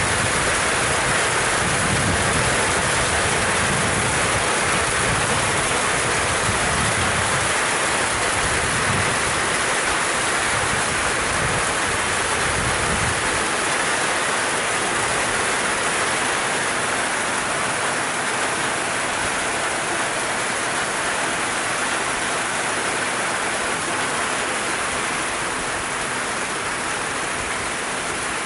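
Heavy rain pouring steadily in a thunderstorm, a dense even hiss. Gusts of wind buffet the microphone with a low rumble through the first half, then ease off.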